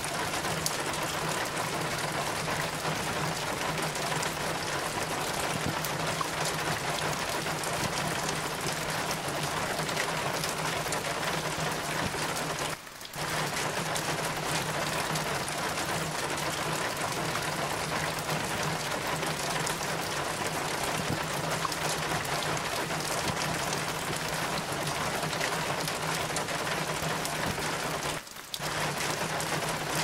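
Steady rain falling, with rainwater running and dripping down a metal rain chain. The sound briefly drops out twice, about 13 seconds in and again near the end.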